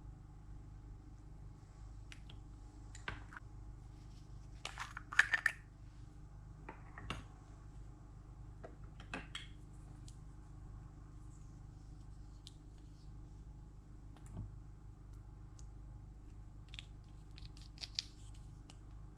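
Scattered small clicks, taps and rustles of slime and mixing materials being handled, loudest in a quick cluster about five seconds in, over a low steady hum.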